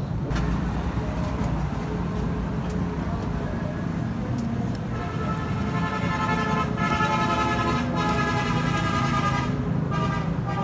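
Small single-cylinder motorcycle engine running steadily. From about five seconds in, a steady high-pitched tone sounds over it for about four seconds, then stops.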